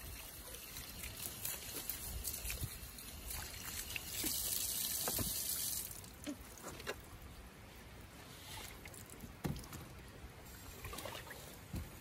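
Water trickling and dripping off freshly washed meju blocks on a slab of slate onto a plastic crate, with small scattered drips. A louder hiss of wind between about four and six seconds in.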